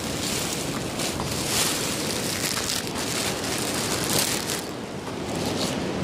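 Waves breaking on a beach, a steady rushing that swells and ebbs, with wind on the microphone.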